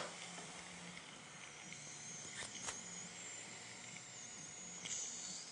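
Faint steady hiss with a thin high whine that wavers in pitch, a sharp click at the very start and two small ticks in the middle.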